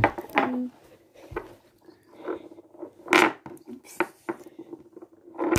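Torpedo magnets clicking against each other and tapping on a wooden tabletop as they are handled: a handful of separate sharp clicks, the loudest about three seconds in.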